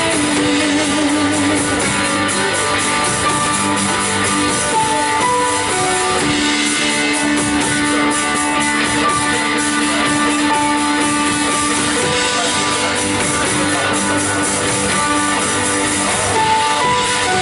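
Live worship band playing an instrumental passage: guitars strumming under long held melody notes, at a steady level.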